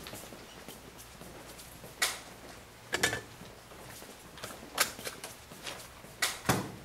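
Sheets of paper being handled, with about five sharp clicks and snaps spread through, among them a hand stapler pressing a staple through paper. The loudest, near the end, has a dull thump to it.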